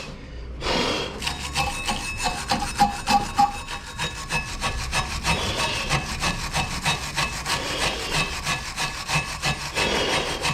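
A brush scrubbing brake dust and debris off the rear brake parts in quick back-and-forth strokes, several a second.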